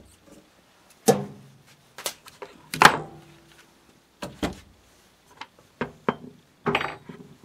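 Metal power-scraper parts and tools knocking on a wooden workbench while being handled: about six sharp knocks, the loudest a little under three seconds in, with a brief metallic ring.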